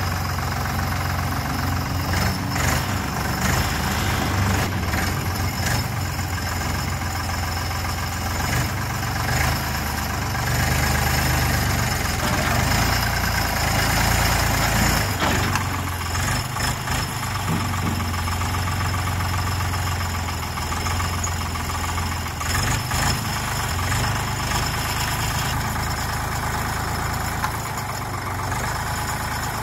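Deutz-Allis four-wheel-drive loader tractor's diesel engine running at a steady idle, a little louder for a few seconds near the middle.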